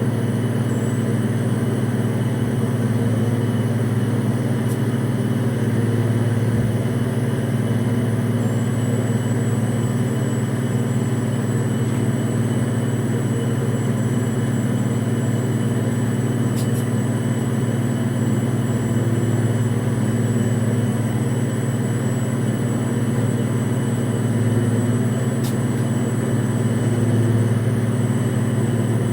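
Steady low drone of heavy machinery running without any change in pitch or level, with a faint thin high whine above it.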